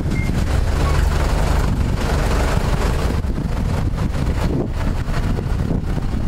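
Pressure washer's 30 hp Kohler Command PRO engine running steadily, with a deep rumble, and wind buffeting the microphone.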